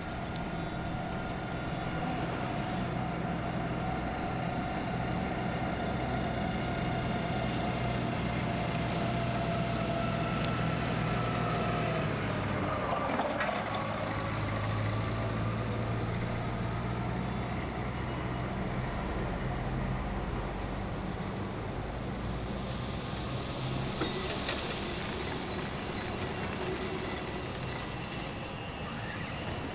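Synchrotrain prototype, a minivan on rail guide gear, running along a track: a steady hum with a whine on top that drops sharply in pitch as it passes close by about 13 seconds in, then carries on and slowly fades.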